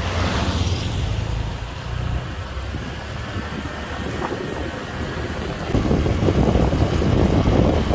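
Motor scooter running on the road, with wind buffeting the microphone; the wind noise gets louder about six seconds in.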